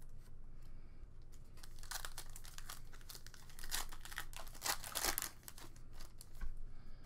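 Foil wrapper of a football card pack being crinkled and torn open by hand. A dense crackling starts a couple of seconds in, is loudest near the end of the tearing, and stops about a second before the end.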